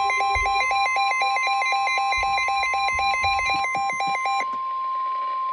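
Weather alert radio sounding its warning: a rapid electronic beeping alarm, about five beeps a second, over a steady high tone near 1 kHz, the NOAA Weather Radio warning alarm tone. The beeping stops about four and a half seconds in while the steady tone carries on.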